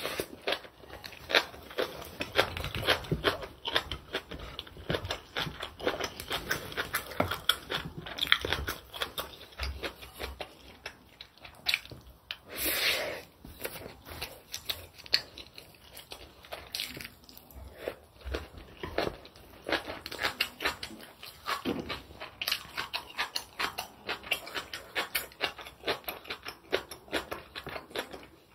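Close-miked mouth sounds of someone eating braised kimchi with rice: wet chewing and crunching, with quick, irregular clicks and smacks.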